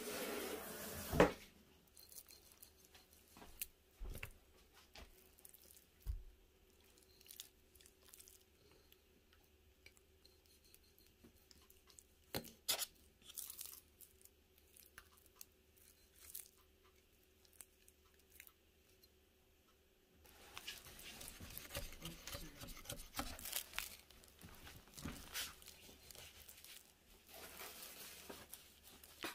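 A raw rack of pork spare ribs being handled on a metal sheet pan: scattered knocks and clicks, the loudest about a second in, then from about 20 s a longer stretch of wet tearing and crinkling.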